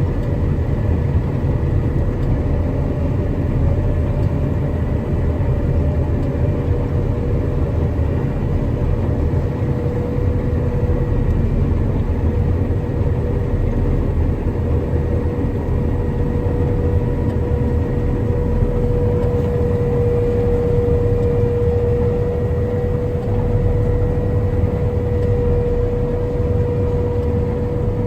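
Combine harvester running steadily at working speed: a continuous low engine rumble with a steady whine over it that grows louder midway.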